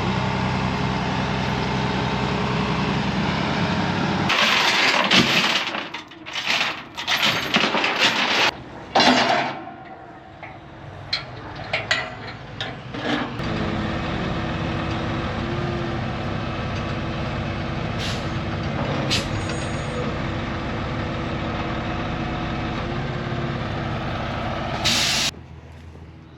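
Heavy truck's diesel engine running steadily. A few seconds in come loud air-brake hisses and knocking clanks, then the engine settles back to a steady run.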